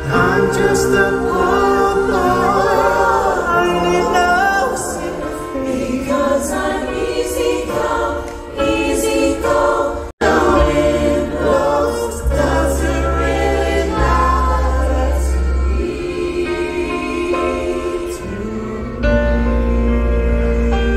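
Background music with singing over a strong bass line; the sound cuts out for a moment about halfway through, then the music carries on.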